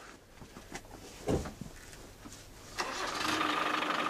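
A few light knocks and one heavier thump, then about three-quarters of the way through a vehicle engine starts and runs steadily.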